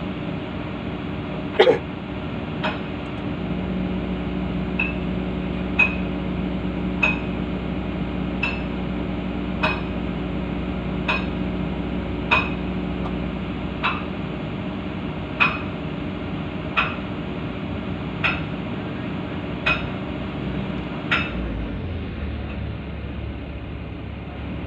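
Metal-on-metal hammer strikes on the bucket linkage of a Komatsu PC160LC-8 excavator, about one every second and a half, as the bucket is worked loose so the hydraulic breaker can be fitted. Under the strikes the excavator's diesel engine runs steadily, and its note changes near the end.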